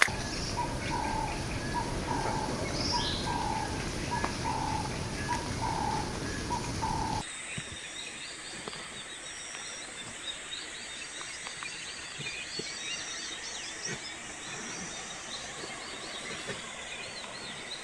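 A steady rushing noise of water, with a short call repeating a little faster than once a second. About seven seconds in it changes suddenly to a quieter riverside background full of many small birds chirping.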